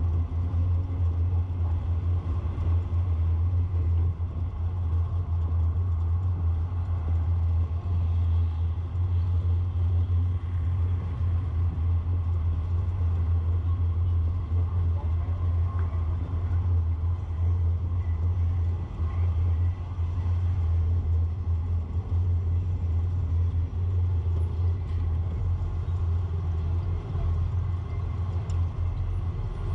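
A road vehicle driving along a city street, making a steady low rumble, with other traffic around it.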